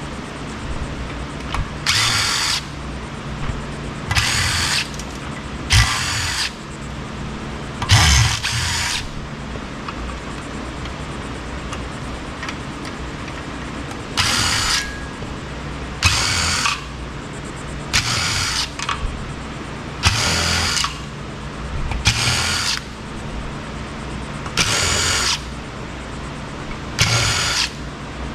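Power drill-driver spinning screws out of a metal charger casing in about eleven short whirring bursts, each about half a second long, with a longer pause in the middle.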